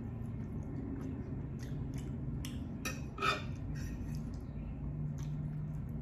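Metal fork clicking and scraping against a plate as bites of food are picked up, with one louder clink about three seconds in.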